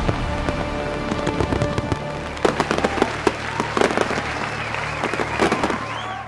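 Aerial fireworks bursting and crackling over background music, with sharp bangs coming thicker from about two seconds in.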